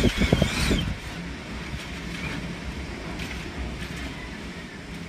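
Strong typhoon wind buffeting the microphone, a steady low rumble, with a louder uneven gust in the first second.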